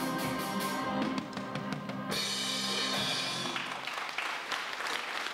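Live music from a children's choir with a small band of drum kit, electric guitar and bass. A cymbal crash comes in about two seconds in, and around three and a half seconds the held notes stop while the drums and cymbals play on.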